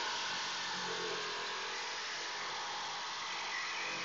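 Bosch corded jigsaw running steadily, its blade sawing through a wooden board.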